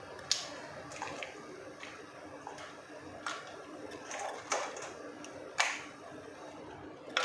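Cooked crabs being set down on top of rice in a nonstick pot: scattered light clicks and knocks of crab shells against each other and the pot rim, about a dozen over several seconds, over a faint steady hum.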